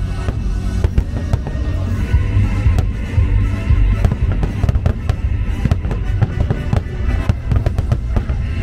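A rapid fireworks barrage: many aerial shells bursting in quick succession, a dense run of sharp bangs and crackles, over loud show music.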